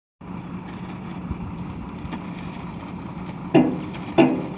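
Truck-mounted borewell drilling rig running with a steady engine hum. Two loud short sounds break in near the end, about half a second apart.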